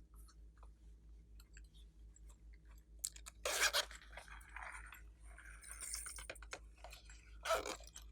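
Glossy slime being squished and kneaded by hand: faint sticky clicks, then loud crackling squishes about three and a half seconds in, more near six seconds and again near the end.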